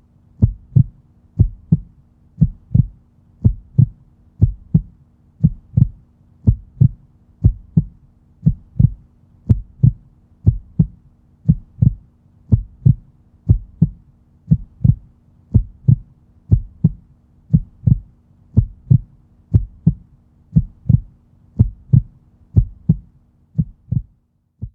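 Heartbeat sound effect: low double thumps (lub-dub) repeating at an even, steady pace, with a faint hum underneath. It cuts off near the end.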